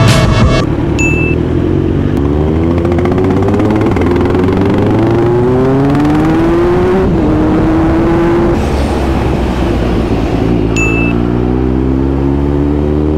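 Kawasaki Z900 inline-four engine accelerating under a rider, its pitch climbing steadily, dropping suddenly at an upshift about seven seconds in, then climbing again near the end.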